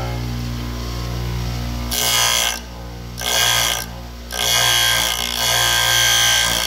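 Bench grinder running with a steady motor hum while its stone wheel grinds the point of a twist drill bit held in a sharpening jig. Two short grinding touches come about two and three seconds in, then the grinding runs on steadily from about four and a half seconds.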